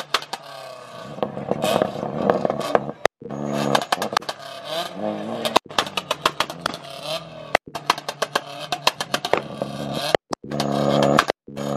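Car engine running, its pitch rising and falling with the revs, over many sharp crackling clicks; the sound cuts out briefly a few times.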